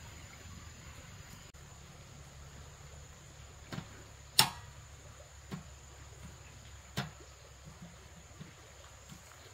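Tableware clinking during a meal: four short sharp clicks, the loudest about four and a half seconds in, over a steady low hum.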